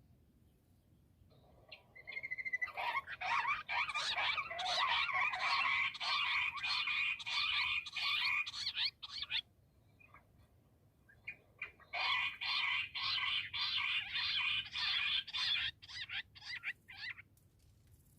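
Bush quail calling: two long bouts of rapid repeated chattering notes, separated by a short pause of about two seconds.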